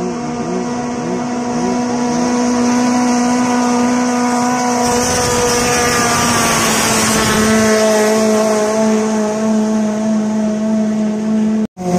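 Longtail boat engine running at full speed as the boat races past, with the rush of its propeller spray swelling as it goes by. The engine pitch drops once it has passed. The sound cuts out briefly near the end.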